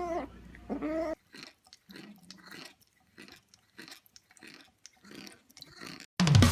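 A cat's drawn-out yowl fades out about a second in, then faint, irregular crunching and chewing, about two bites a second, like a cat chewing dry food. Loud music cuts in near the end.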